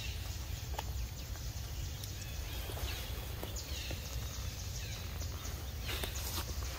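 Outdoor ambience: a steady low rumble on the microphone over a background hiss, with a few faint high chirps falling in pitch, a couple near the middle and more near the end.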